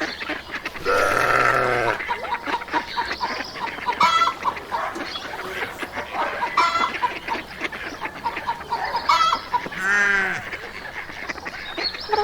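Farmyard poultry: hens clucking throughout, with geese honking in separate calls every two to three seconds, including a longer call about a second in.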